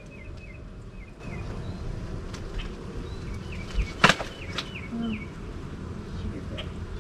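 Honeybees buzzing around an opened hive while it is handled, with scattered knocks and one sharp crack about four seconds in. A bird sings series of short repeated chirps in the background.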